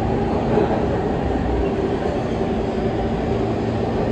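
Siemens R160B subway car running between stations, heard from inside the car: a steady rumble of wheels on rail with a steady low hum.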